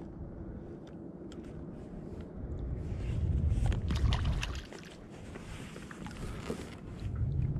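A small codling thrashing and splashing at the sea surface as it is reeled up beside a kayak, loudest for about a second and a half midway. A low wind rumble runs under it.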